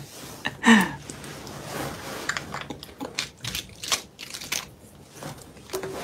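Crinkling and crackling of a plastic wrapper handled close to the microphone, as a run of irregular sharp clicks. A brief voice sound comes just under a second in.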